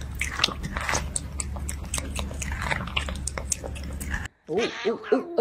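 A cat chewing a whole strawberry, with many quick wet crunching bites. A little past four seconds in, the bites cut off suddenly and a cat's wavering yowl starts near the end.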